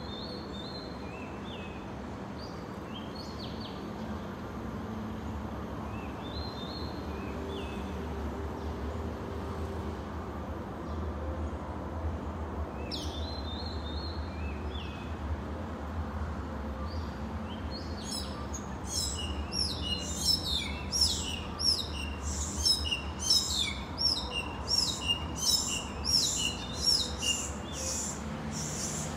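Birds chirping over a steady low rumble of distant city noise. The chirps are scattered at first, then, about two-thirds of the way in, turn into a fast run of loud, repeated chirps that goes on to the end.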